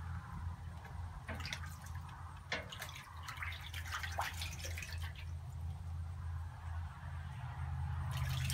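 Small splashes and drips of water in a tub as a duck bathes in it, over a steady low hum.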